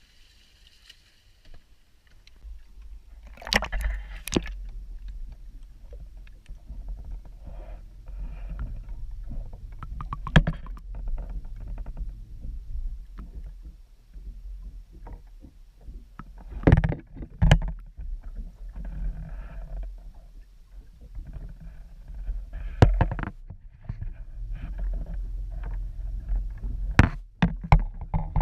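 Bass boat underway: a steady low rumble of motor and water starts about two seconds in, with sharp knocks every few seconds.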